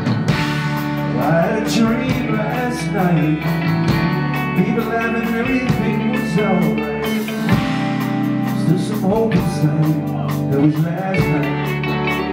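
Live rock band in an instrumental break: electric guitars play a lead line with bent, gliding notes over chords, with a drum kit keeping the beat.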